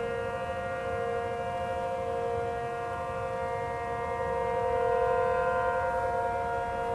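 Outdoor tornado warning siren sounding a steady held tone, several pitches at once, swelling slightly louder about five seconds in.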